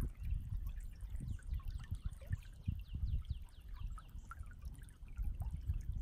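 Creek water babbling and trickling, an uneven gurgling wash with small scattered plinks.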